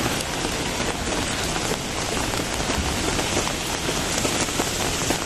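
Steady rain falling on a wet paved street, an even hiss with no breaks.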